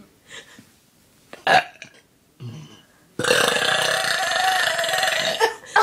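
A person forcing out a deliberate burp: after a short sound about a second and a half in, a long, loud burp starts about three seconds in and is held for over two seconds.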